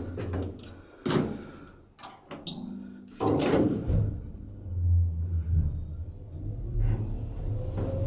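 Knocks and clicks, then an old elevator's door bangs shut about three seconds in. About a second later the lift motor starts with a low steady hum as the car moves off.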